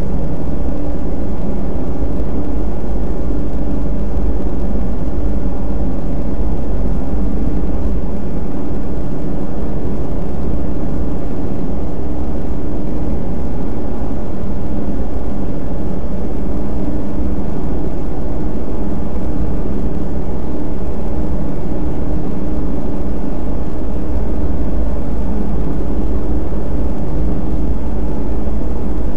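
Several front-loading washing machines running at once, their sounds layered into a loud, steady machine drone with a deep rumble and a constant hum that never changes.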